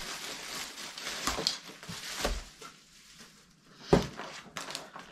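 Plastic packaging rustling and crinkling as it is handled, with a single knock about four seconds in.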